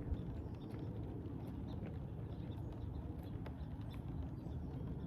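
Outdoor ambience: a steady low rumble with scattered light ticks and taps, and one sharper tap just at the start.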